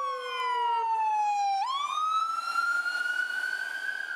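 Ambulance siren wailing in slow glides: the pitch falls steadily, sweeps quickly back up about one and a half seconds in, climbs slowly, and starts falling again near the end.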